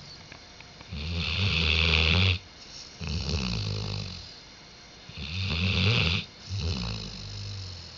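Labrador retriever snoring in its sleep, in a steady rhythm: a loud snore, then a softer one, twice over.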